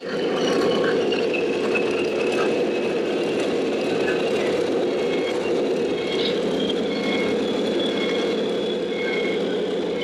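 Radio-controlled scale trucks running: a steady engine-like drone with a faint high whine coming and going over it.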